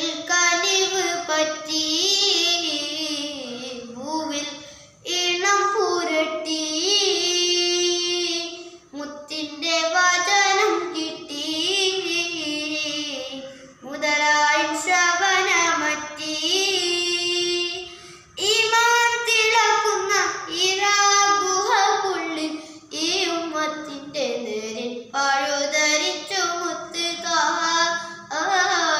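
A boy singing a madh, an Islamic devotional praise song, solo and unaccompanied, in long melodic phrases with short breath pauses between them.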